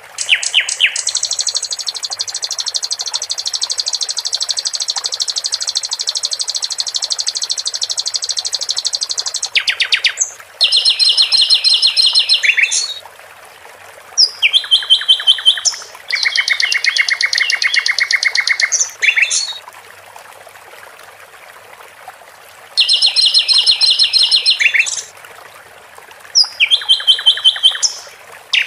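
Song of a sikatan londo (an Indonesian songbird): loud, fast, high trills and rapid repeated notes. One long unbroken trill lasts most of the first ten seconds, then shorter phrases follow, separated by pauses. A steady trickle of water runs underneath.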